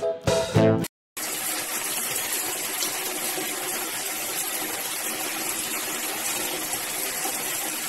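A moment of drum music ends abruptly about a second in, then a shower runs steadily, its water spraying down in an even hiss.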